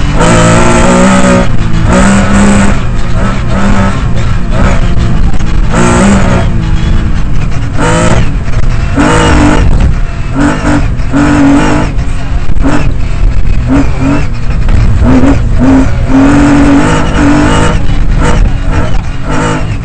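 Lancia Stratos rally car's engine heard from inside the cabin, run hard on a stage, its pitch climbing and dropping again and again as the car accelerates and slows.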